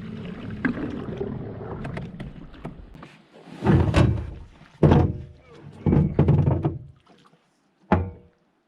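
The canoe's electric motor hums steadily, then cuts off about three seconds in. It is followed by a series of loud, hollow thunks on the canoe's hull, four or five knocks over the next few seconds, as the boat lands and is moved about.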